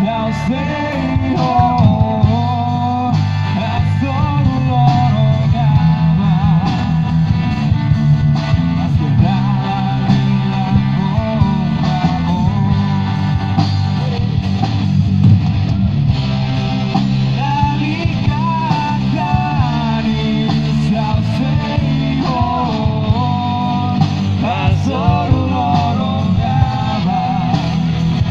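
A rock band playing live through a PA: electric guitar, heavy bass and drums under a singer, during a sound check.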